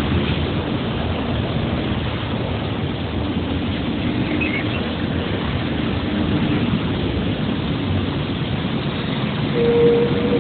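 A train running, a steady loud rumble, with a faint humming tone through the middle and a brief higher tone near the end.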